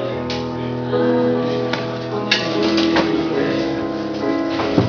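Music with held chords that change every second or so, and a few sharp struck or strummed notes.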